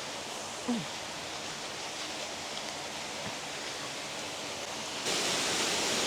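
Steady rushing of a waterfall, which jumps suddenly louder and brighter about five seconds in.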